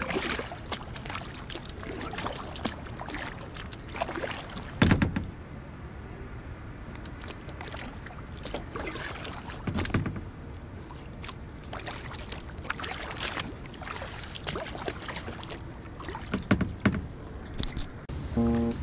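Kayak paddle strokes swishing and splashing in the river water at an irregular pace, a few strokes louder than the rest, with a few sharper knocks near the end.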